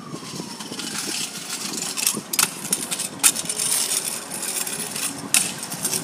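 Kick scooter rolling over asphalt, with about four sharp metallic clacks of the scooter deck hitting the road. A car passes at the start, its pitch falling as it goes by.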